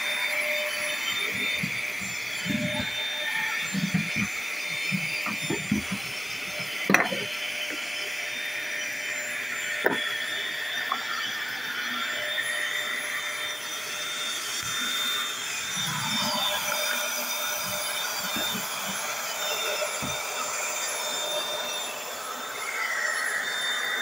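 Vacuum cleaner running steadily over a wooden floor, with a few short knocks and low bumps as it is pushed about, the sharpest about seven and ten seconds in.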